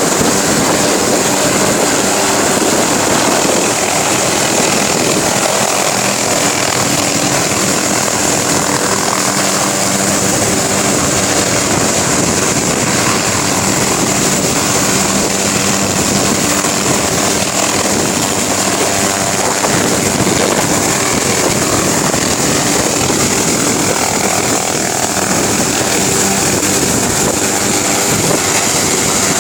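Helicopter running steadily: turbine whine with a constant rotor drone and a few steady low tones, with no change in level.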